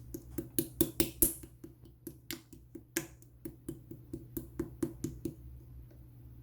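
Clear slime being squeezed and pressed by hand, giving a quick series of sharp clicks and pops, several a second, that stops about five seconds in.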